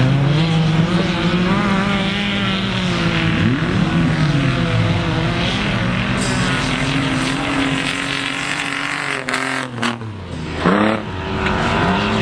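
Autocross race cars' engines running hard on a dirt track, their pitch rising and falling as they rev up and shift. Near the end the engine noise dips briefly, then an engine revs up sharply.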